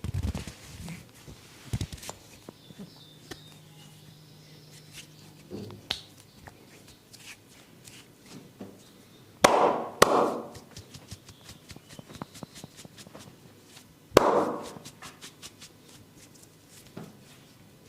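A barber's hands slapping on skin during a massage: three loud slaps, two in quick succession about halfway through and one a few seconds later, among lighter taps.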